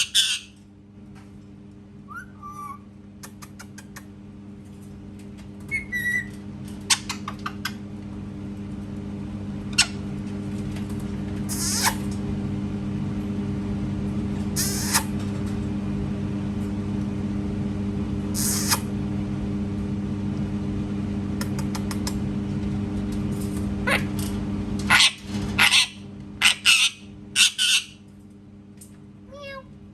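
Pet parrot giving short, sharp screeches now and then, with a few small chirps and a quick burst of several calls near the end. Under them a steady machine hum slowly grows louder and then stops suddenly.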